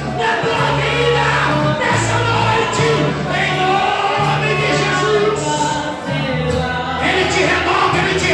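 Congregation singing a worship song with a band, sustained bass notes changing about once a second under the voices.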